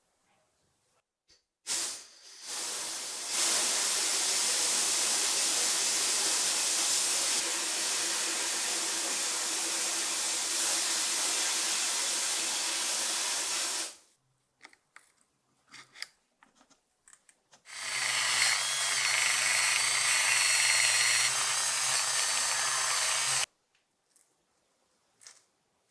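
A power tool running in two bursts: a long hissing run of about twelve seconds, then after a pause a shorter run of about six seconds with a steadier motor hum, with small clicks and knocks in between.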